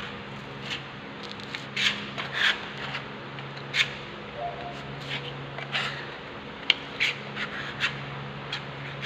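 Hand work against a rough concrete surface: short scraping and rubbing strokes at uneven intervals, with a steady low hum underneath.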